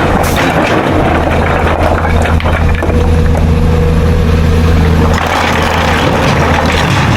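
Excavator's diesel engine running steadily with a deep, even drone.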